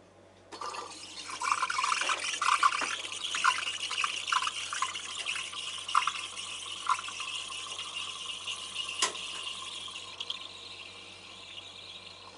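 Gaggia Gran Prestige's Panarello steam wand hissing into milk in a stainless pitcher, frothing it. The steam comes on about half a second in, with many short sputtering chirps over the first several seconds, then settles into a smoother hiss that slowly quietens. There is a single click about nine seconds in.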